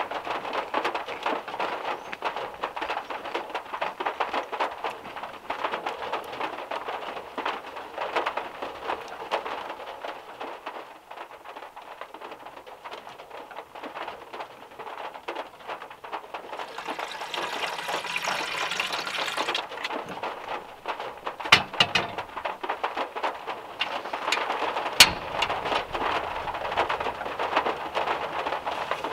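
Heavy rain drumming on the metal roof of a VW Beetle, heard from inside the car as a dense, steady patter of drops. A brief hiss comes a little past halfway, and a few sharp clicks from handling things come later on.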